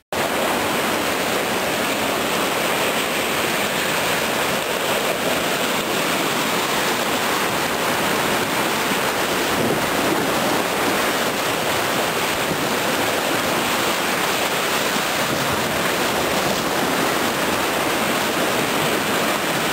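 Steady, even rush of whitewater rapids heard from aboard a cataraft running the current.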